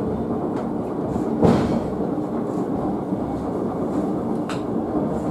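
Sakamoto Cable funicular car rolling downhill on its rails with a steady rumble and faint hum, and a single sharp clunk about one and a half seconds in.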